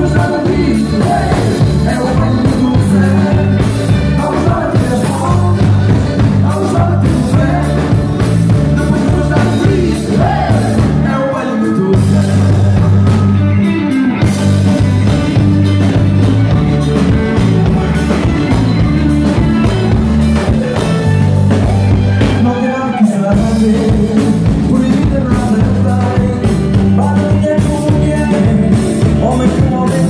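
Live band playing Portuguese popular dance music at full volume through a PA: a man and a woman singing over drums, bass, electric guitar and accordion, with a steady, pulsing bass line.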